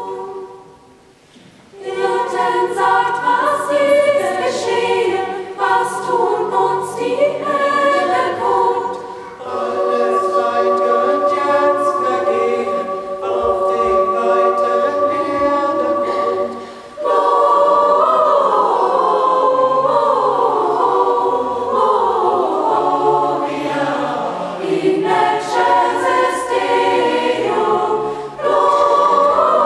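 Mixed choir of young voices and a few men singing unaccompanied, in several parts. The singing breaks off for about a second near the start and pauses briefly between later phrases.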